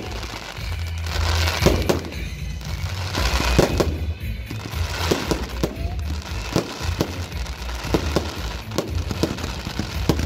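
Fireworks display: an irregular run of bangs from shells bursting overhead, with crackling glitter stars, over music.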